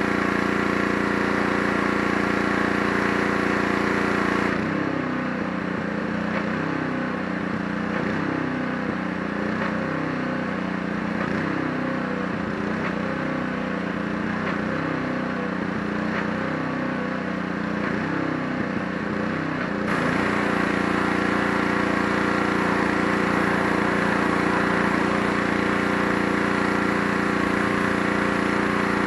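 Gas-engine pressure washer running steadily with a high hiss. About four seconds in, the hiss drops away and the engine note wavers in a slow, regular pulse, about once a second, for some fifteen seconds, then returns to the steady note with the hiss.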